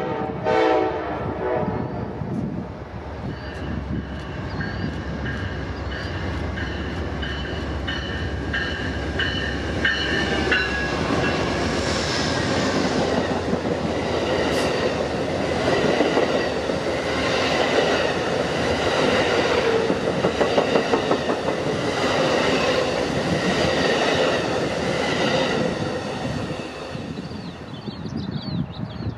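Amtrak passenger train, a GE Genesis diesel locomotive hauling double-deck Superliner cars, passing close by. A horn note at the start falls in pitch as it goes by. Then comes a long run of wheels clacking over the rail joints with a high, wavering squeal from the wheels, and it fades near the end.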